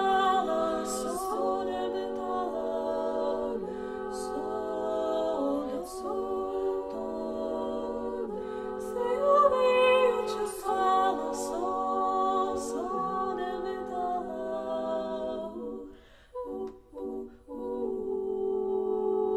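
Unaccompanied voices singing a Lithuanian folk song in several parts, held notes in phrases a few seconds long. The singing breaks off briefly near the end, then the voices come back in.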